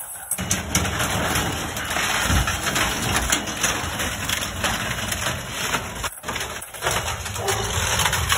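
Truck-mounted compactor's spiked roller wheel crushing wooden pallets in a steel dumpster: wood cracking and splintering over the steady running of the truck's engine. The sound cuts out briefly twice a little after six seconds in.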